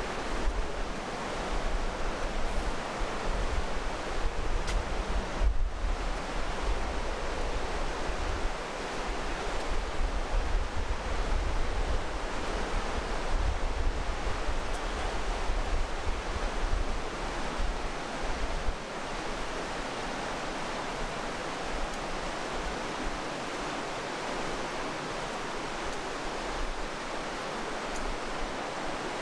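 Mountain river rushing through a rock gorge, a steady noise of water throughout. Low wind rumble on the microphone stops about two-thirds of the way through.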